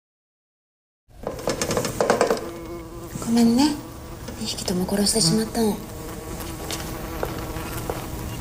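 Silence for about a second, then blowflies buzzing close up in a glass box, the buzz swelling in a few loud passes that rise and waver in pitch.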